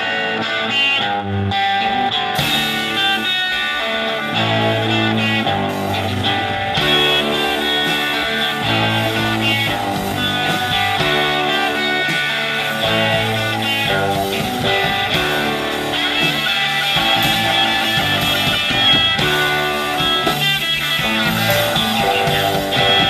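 Live rock band playing: electric guitars, drum kit and keyboard. The full band, cymbals included, comes in about two seconds in.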